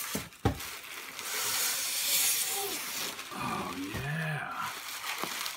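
Bubble wrap and plastic packaging rustling and crinkling as a wrapped painting panel is pulled out and unwrapped. A sharp knock comes about half a second in, and a brief low vocal hum about four seconds in.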